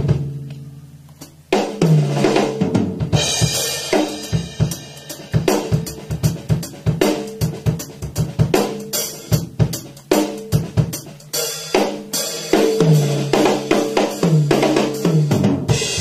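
Drum kit played as a solo. A hit rings out and fades for about a second and a half. Then fast, dense playing across snare, bass drum and cymbals follows, with pitched drums ringing down in runs several times.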